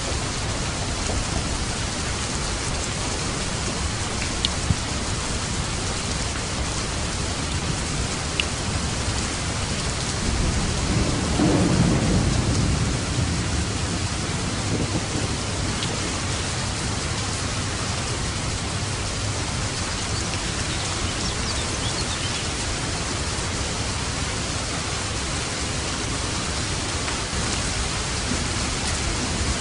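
Steady heavy rain falling, with a low roll of thunder swelling and fading about ten to fourteen seconds in.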